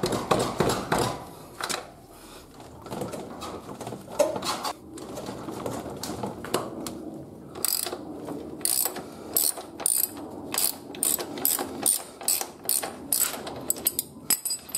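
Socket ratchet wrench clicking as it spins off the freshly loosened 22 mm rear axle nut of a motorcycle. The clicks come in quick runs of several a second, densest in the second half.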